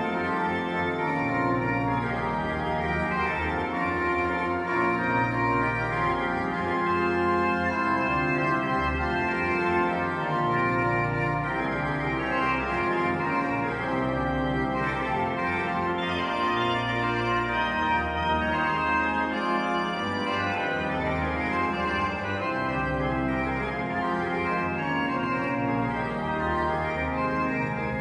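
Historic 17th-century pipe organ playing an improvisation on a 15th-century melody: full held chords over a bass line that moves every second or so, at an even loudness.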